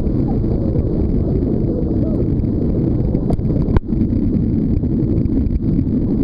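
Wind buffeting the microphone and water rushing past a towed banana boat at speed, a loud, steady low rush, with a couple of sharp knocks a little past three seconds in.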